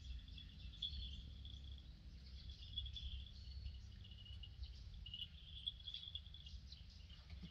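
Faint outdoor ambience: short, irregular high-pitched chirping over a low rumble.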